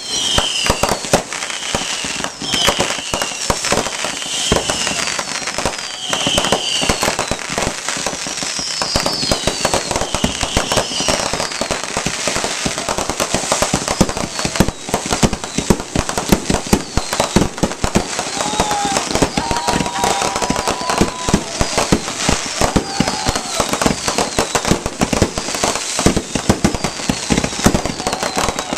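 Consumer fireworks going off in a dense, continuous barrage of crackles and bangs. Short high whistles repeat about once a second through the first ten seconds or so.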